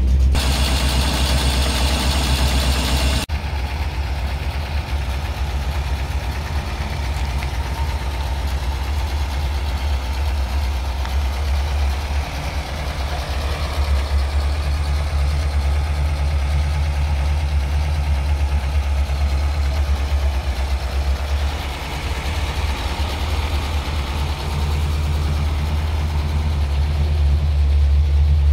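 1955 Morris Oxford Series II's 1.5-litre B-series four-cylinder engine idling steadily. A burst of hiss in the first three seconds cuts off sharply.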